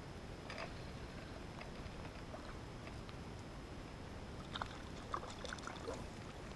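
Quiet waterside ambience: a faint steady wash of moving water, with a few light clicks and short chirps between about four and six seconds in.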